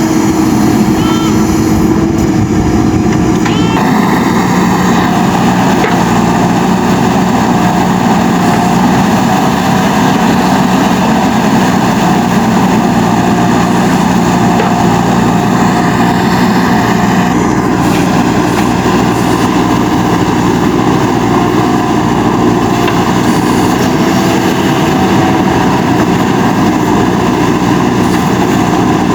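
JCB 3DX Super backhoe loader's diesel engine running steadily while working, its note shifting about four seconds in and again later on.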